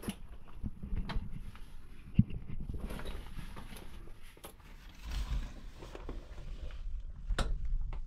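Footsteps and scrapes on the rock of a narrow cave passage, with rustling and knocks from the handheld camera; a sharp knock about two seconds in and another near the end.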